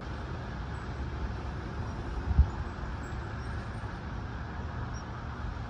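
Steady road traffic noise with a low rumble, and a brief low thump about two and a half seconds in.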